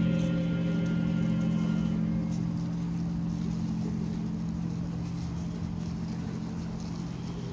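Deep hum of a large church bell dying away after a strike. Its higher overtones fade out about two seconds in, while the low hum lingers and slowly gets quieter.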